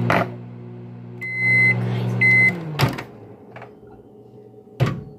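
Microwave oven running with a steady hum, then beeping twice; right after the second beep the hum winds down, and a sharp click follows, typical of the door being opened. A couple more knocks come near the end.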